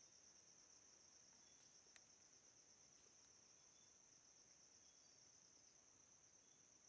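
Near silence, with a faint, steady high-pitched chorus of forest insects and a single faint click about two seconds in.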